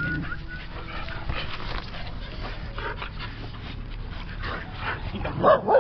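Stray dogs whimpering and yipping, with a louder yelp near the end.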